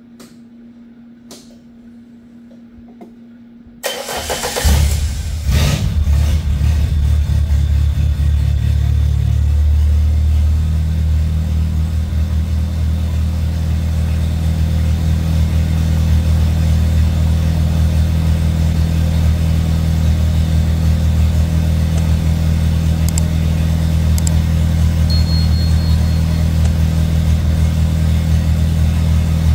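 The homemade helicopter's fuel-injected engine starts about four seconds in, then idles steadily, its idle speed stepping up a little about ten seconds in. This is the test start after a new oxygen sensor was fitted and the engine tuned.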